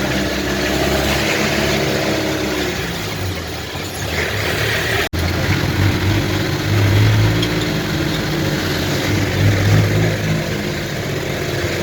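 A motor vehicle's engine runs steadily for the first few seconds, then drives on with its low engine note swelling twice. There is a brief dropout about five seconds in, where the recording is cut.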